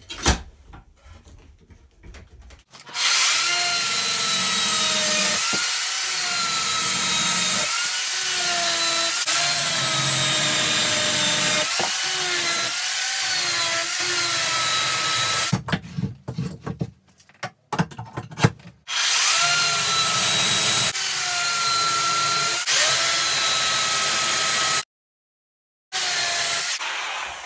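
Makita UC4051A 14.5-amp electric chainsaw cutting through a birch log, rounding over the corners of a bowl blank. Its motor pitch dips and recovers as the chain loads up in the wood; it starts about three seconds in, stops for a few seconds past the middle, then cuts again.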